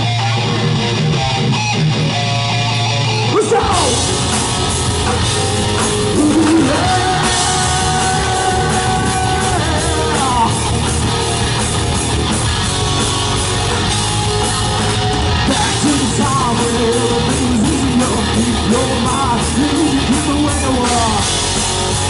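Live heavy metal band playing loud distorted electric guitars, bass and drums. A guitar holds notes alone at first, and the full band comes in about three and a half seconds in.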